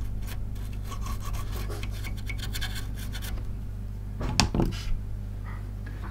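Small stiff brush scrubbing quickly back and forth over the solder side of a circuit board, cleaning the freshly soldered joints with alcohol, for about three seconds. A short clatter follows a little past four seconds in.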